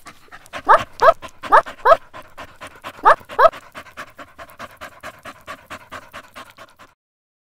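Dogs panting rapidly, with three pairs of short, loud, pitched yips in the first few seconds; the panting cuts off suddenly near the end.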